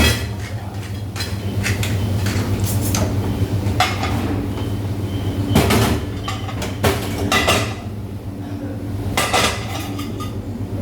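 Dishes and cutlery clattering as they are handled and set down in a sink, a dozen or so irregular knocks and clinks, over a steady low hum.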